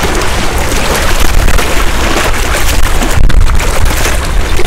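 Wind buffeting the microphone in a loud, steady rumble, over small waves washing against the shore rocks.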